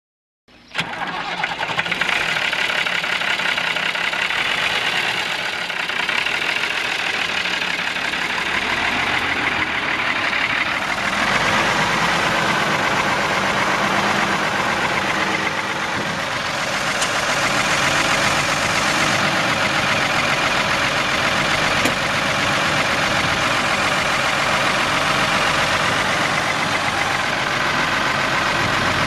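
Ford 9600 tractor's Ford 6H26 six-cylinder diesel engine running steadily. The sound comes in suddenly about half a second in and grows slightly fuller about eleven seconds in.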